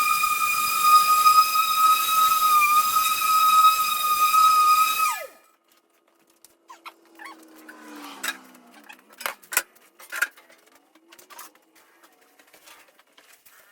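Handheld electric grinder sanding paint off a steel air tank, running with a steady high whine over a hiss, then switched off about five seconds in, its pitch falling as it spins down. After that, scattered light clicks and knocks.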